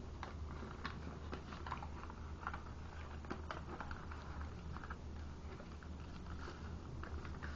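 Origami paper being handled and creased by fingers: irregular small crinkles and crackles as a folded flap is pulled out and pressed into shape.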